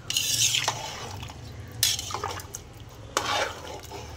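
Metal slotted spoon stirring rice and mutton in a pot of water, scraping the pot and sloshing the liquid in a few separate strokes, over a steady low hum.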